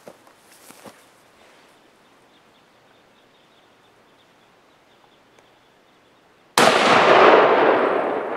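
A single hunting rifle shot about six and a half seconds in, its echo rolling away over about three seconds. It is a follow-up shot at a wounded bull elk.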